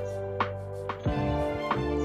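Soft instrumental background music: a run of separate notes over held chords.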